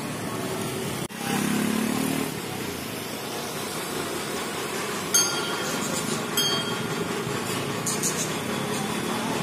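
Busy city street ambience: steady traffic noise with engines running. Two short metallic clinks ring out about five and six and a half seconds in.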